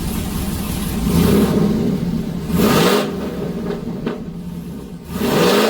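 A rebuilt Chevy Avalanche 1500's V8 with a stage 2 cam, long tube headers and Corvette mufflers, running and blipped three times. Each rev rises sharply and falls back to idle.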